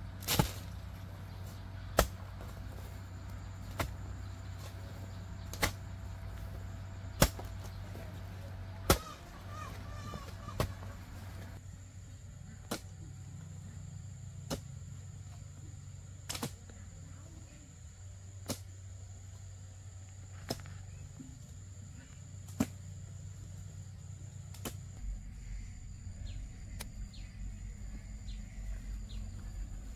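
A steady series of sharp knocks, about one every two seconds, like repeated blows of a hand tool.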